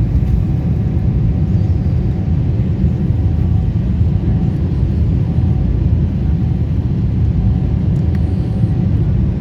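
Airbus A340 running with a loud, steady low rumble and a faint steady tone above it, unchanging throughout.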